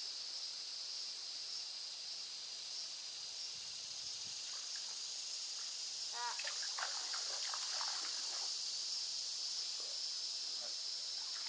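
Steady high-pitched insect chorus, with a few brief faint voices about six to eight seconds in.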